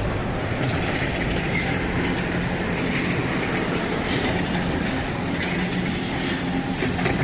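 Demolition machinery working on a concrete building: a steady mechanical rumble with continual clattering and knocking.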